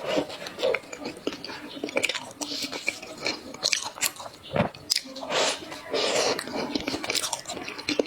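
Close-miked eating: a person chewing and biting food, with irregular wet smacks and sharp clicks from the mouth.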